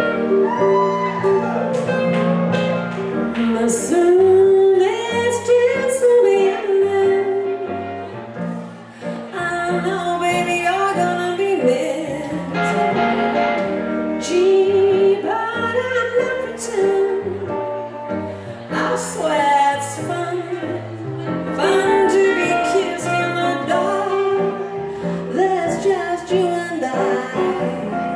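Live band instrumental break: hollow-body archtop electric guitar and electric keyboard playing a swinging, melodic passage over moving lower notes between sung verses.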